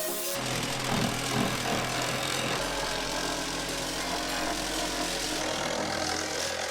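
A motor or engine running steadily, starting about half a second in and cutting off suddenly at the end.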